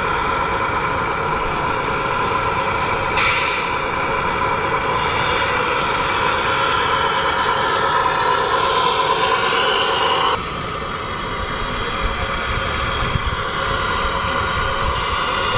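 Radio-controlled Mercedes-Benz Arocs scale dump truck driving, with a steady engine-like drone and a short hiss about three seconds in. The drone drops and quietens about ten seconds in.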